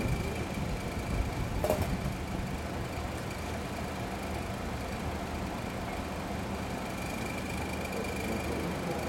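Steady low hum of vehicle engines idling, with one short sharp click about two seconds in.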